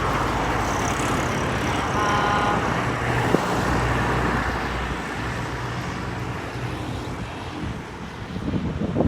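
Wind buffeting the microphone, mixed with traffic passing on the road beside it. A few short steady tones sound about two seconds in.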